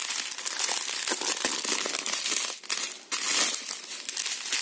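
Clear plastic packaging bags crinkling and crackling irregularly as they are handled and opened, loudest about three seconds in.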